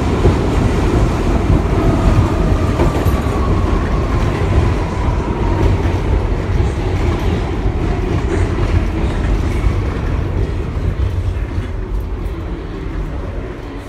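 Inside a Bombardier R62A subway car as it runs and slows into a station: a steady rumble of wheels on rail with a faint whine falling in pitch. The noise eases off near the end as the train comes to a stop.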